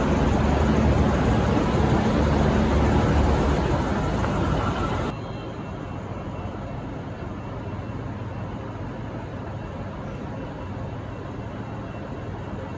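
V/Line VLocity diesel railcar running at the platform: a steady diesel drone with a faint whine. About five seconds in, the sound drops suddenly to a quieter steady low hum.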